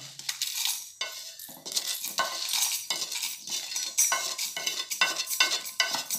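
Dry-roasted whole spices (coriander seeds, cumin, fennel, dried red chillies, cinnamon) rattling as they are tipped and scraped out of a pan into a stainless-steel mixer-grinder jar: a quick, uneven run of small clicks and metallic clinks.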